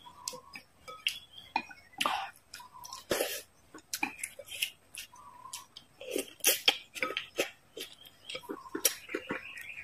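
Close-miked eating: wet chewing, smacking and slurping of food, with irregular short clicks of a wooden spoon and chopsticks against a glass bowl of broth.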